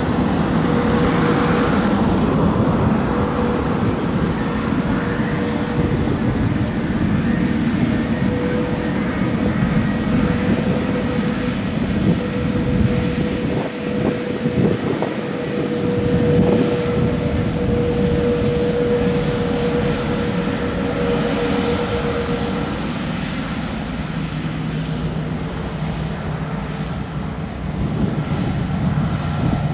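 Boeing 787-9's Rolls-Royce Trent 1000 turbofans running at taxi power as the airliner rolls slowly past: a steady engine rumble and hiss with a held whine that stops about two-thirds of the way through.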